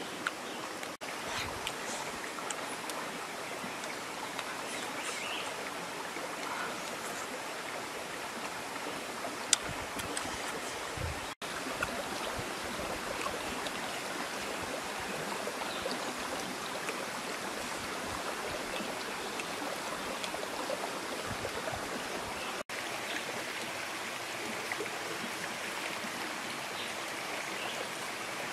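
Steady rushing of running water, like a stream, with a few small clicks on top, the sharpest about nine and a half seconds in.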